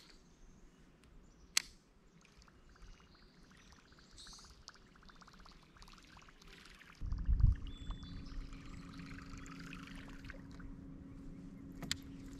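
Water trickling around a kayak while a baitcasting fishing reel is cranked, with a fast run of ticks and a sharp click early on. About seven seconds in comes a heavy low thump, followed by a steady low hum.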